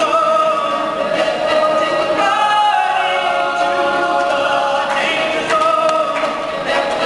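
All-male a cappella group singing a song together, voices only with no instruments.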